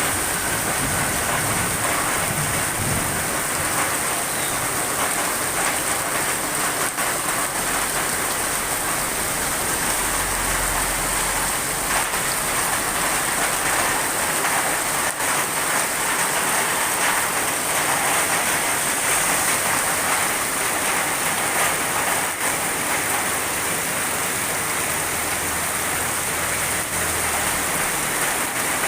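Heavy rain pouring steadily, a dense even hiss of rain falling on surfaces. A brief low rumble comes about ten seconds in.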